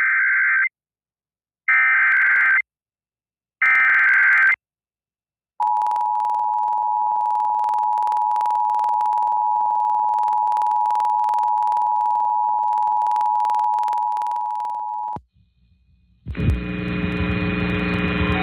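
Emergency Alert System broadcast: three short screeching digital data header bursts, then the steady two-tone EAS attention signal, held for about nine seconds before cutting off. Music starts about a second later.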